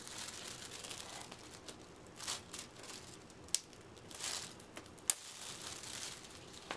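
Plastic wrapping crinkling and tearing as it is peeled off a cardboard game screen by hand, irregular and crackly, with a few sharp crackles.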